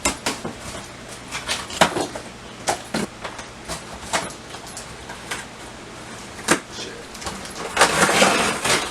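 Cardboard shipping box being opened by hand: scattered knocks, clicks and scrapes, then a dense papery burst lasting about a second near the end.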